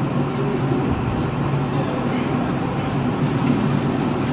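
Steady background din of a busy eatery: a constant low hum under faint, indistinct voices, with traffic-like noise mixed in.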